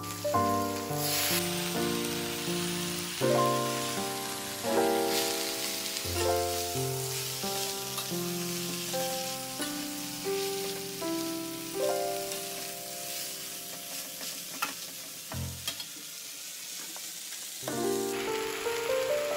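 Leafy greens stir-frying in an aluminium wok: hot oil sizzling and a metal spatula stirring and clicking against the pan. Background music plays over it.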